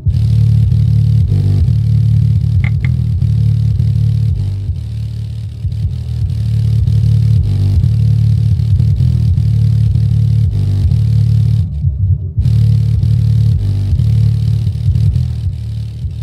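NVX SMW10D4 10-inch shallow-mount subwoofer in a small sealed box playing a bass test track loud, heavy deep bass pulsing at roughly 100 to 180 watts from the amplifier. There is a brief faint click about two and a half seconds in.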